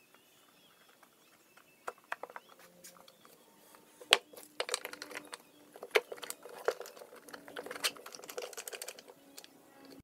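A wooden box being handled and a strap clamp with plastic corner blocks being fitted and tightened around it: one loud knock just after four seconds, then a quick run of small plastic clicks and rattles.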